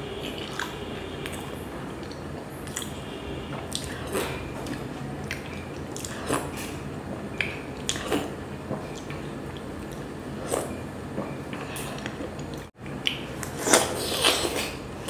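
Close-miked chewing of chocolate cake: soft, wet mouth sounds with sharp clicks every second or so, and a short louder run of them near the end.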